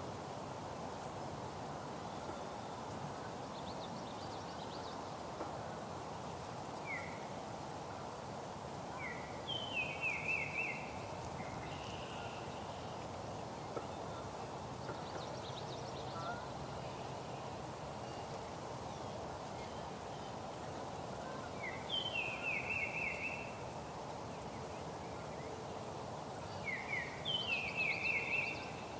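A songbird singing the same short song three times, each a few clipped rising notes followed by a quick trill, over steady outdoor background noise.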